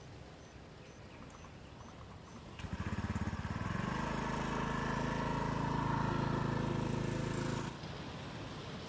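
An engine running, coming in suddenly about two and a half seconds in with a quick pulsing start, then holding a steady hum until it cuts off abruptly near the end. Before it there is only a faint outdoor background.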